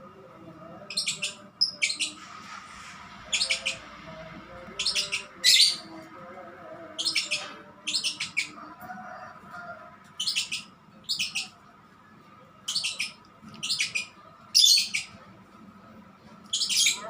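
Male lovebird giving short, sharp, high chirps in quick clusters of two or three, repeated every second or two. Keepers read this as the sign of a male about to go 'konslet', breaking into long unbroken song.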